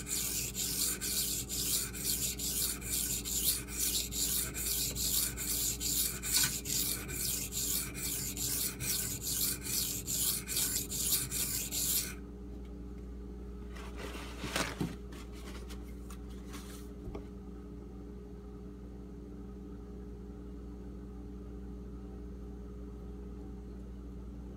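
AUS-8 steel knife blade stroked back and forth on a wet whetstone, an even rasping scrape a little over twice a second, grinding the edge to raise a burr. The strokes stop about halfway through, followed by a few light handling knocks and a steady low hum.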